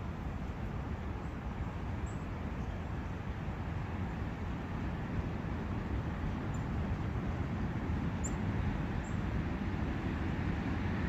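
A brook running steadily, a continuous rushing wash heaviest in the low end, with a few faint short high chirps over it.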